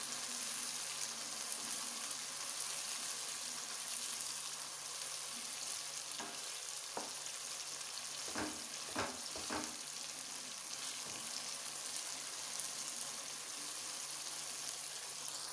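Chopped tomatoes and fried onions sizzling in hot oil in a non-stick wok, a steady frying hiss, as a spatula stirs them. A few short scrapes and knocks of the spatula against the pan come a little past the middle.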